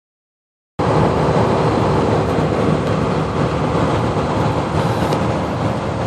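Steady engine and road noise inside a moving semi truck's cab, with a heavy low rumble and a faint steady hum. It starts abruptly about a second in.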